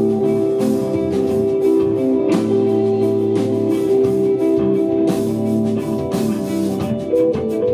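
Desert rock band playing live: electric guitar and bass holding ringing notes over a drum kit, with drum and cymbal hits about every second.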